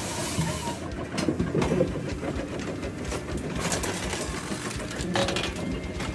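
Heavy machinery running: a steady low rumble broken by irregular clattering knocks.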